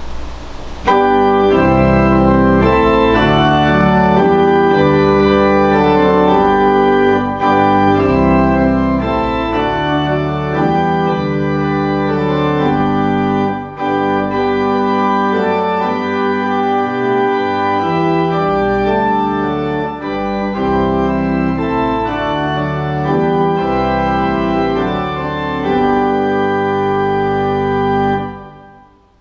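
Organ playing held chords that change every few seconds, entering about a second in and dying away near the end.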